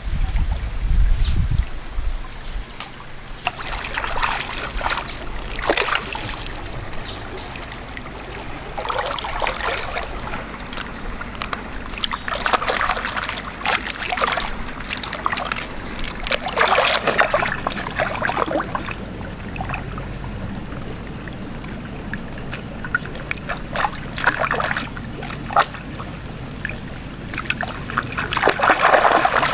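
Water splashing and sloshing in irregular bursts as bundles of taro stalks are dunked and rinsed by hand in a shallow stream, over the steady trickle of the flowing water. The splashing is loudest near the end.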